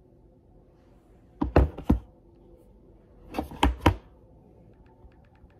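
Fingertips and an Apple Pencil tapping on an iPad's glass screen: two quick clusters of sharp taps about two seconds apart, then a few faint ticks near the end.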